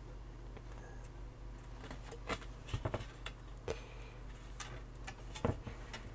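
Scattered light clicks and taps of resistor leads and fingertips against a bare printed circuit board as resistors are pushed into their holes and the board is picked up and handled, over a faint steady low hum.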